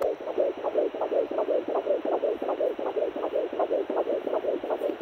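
Fetal heartbeat at 12 weeks of pregnancy played through a pocket fetal Doppler's speaker: a fast, even run of whooshing pulses, about three a second, matching the 164 beats a minute on its display.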